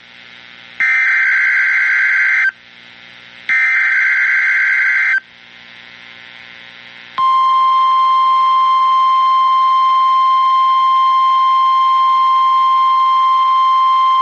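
NOAA Weather Radio emergency alert signal: two harsh, screeching SAME digital header bursts about a second apart, the last of the three-burst header, then about two seconds later the steady 1050 Hz warning alarm tone starts and holds. The sequence marks the start of an emergency alert message.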